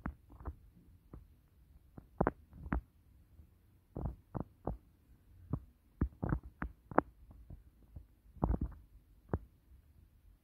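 A series of short, soft knocks and bumps at irregular intervals, some in quick clusters, with no voice.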